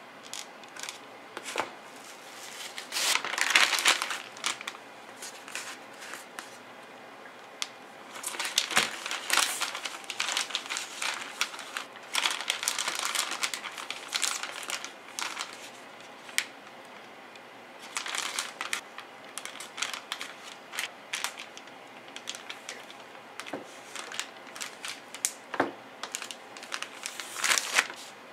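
Plastic zipper storage bag crinkling in repeated bursts, with small clicks, as whole horse mackerel are slid into it and the bag is handled.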